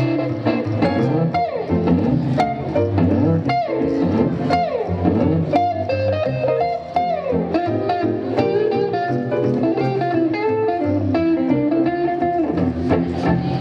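Live swing trio playing an instrumental passage with no vocals: archtop guitar over a plucked upright double bass and upright piano.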